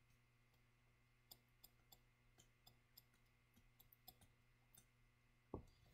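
Near silence with faint, irregular clicks of a stylus tapping on a tablet screen during handwriting, and one louder tap about five and a half seconds in, over a faint low hum.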